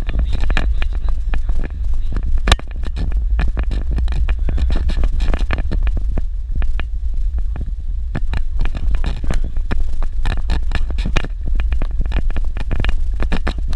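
A vehicle driving over a rough dirt road: a steady low rumble with frequent knocks and rattles throughout.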